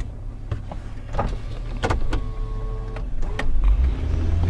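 Car running, heard from inside the cabin as a steady low rumble, with a few light clicks and knocks. A brief steady whine sounds about two seconds in.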